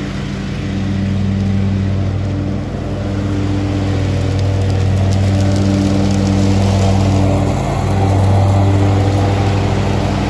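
Ferris IS7000Z zero-turn mower's engine running steadily as the mower drives across the lawn, getting a little louder near the end.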